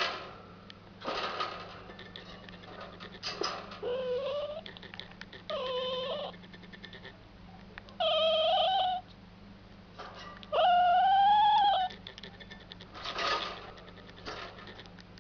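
A pet squirrel calling: a series of drawn-out, pitched cries about half a second to a second long, the longest and loudest about eleven seconds in, with short rasping noises between them.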